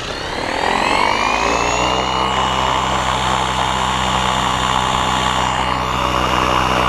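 Align T-Rex 550E electric RC helicopter spooling up on the ground: its Kontronik brushless motor's whine rises in pitch over the first two seconds, then holds steady, and a low rotor drone joins about a second and a half in. The spool-up is uncommanded, caused by the Spektrum DX8 transmitter rebooting itself.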